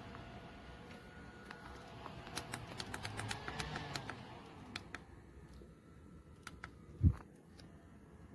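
A quick run of light clicks and taps for about three seconds, a few scattered clicks, then a single dull thump about seven seconds in.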